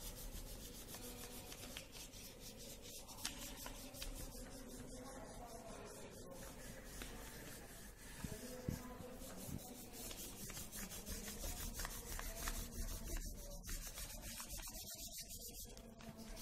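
Wax crayon rubbed fast back and forth over paper laid on a leaf, a continuous run of rapid rubbing strokes.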